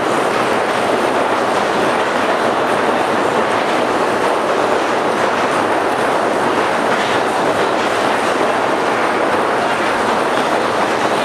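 Ping-pong balls bouncing and rolling down a large slope of sheet-metal panels, a dense, steady rattling clatter.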